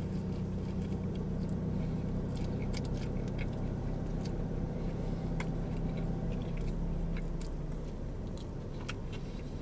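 A man chewing a mouthful of sub sandwich on toasted, crunchy bread: small crunches and mouth clicks scattered throughout. Under it runs a steady low hum that fades near the end.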